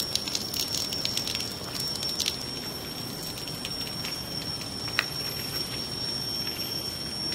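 Light crackling steps on wet pavement littered with broken glass and debris, over a steady outdoor hiss with a constant high-pitched whine. The ticks are densest in the first two seconds, and a single sharper click comes about five seconds in.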